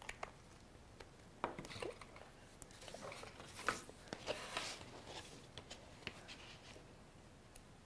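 Faint rustling of paper and light clicks and taps as art supplies and paper are handled on a tabletop.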